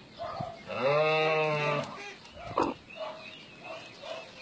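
An animal's long cry that rises and falls in pitch, about a second long, followed by a short sharp call and a few faint short calls.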